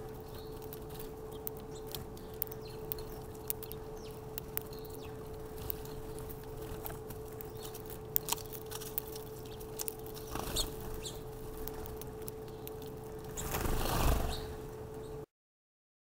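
Small seed-eating birds at a feeder chirping in short, scattered calls over a steady hum. Near the end comes a louder burst of rustling noise, then the sound cuts off suddenly.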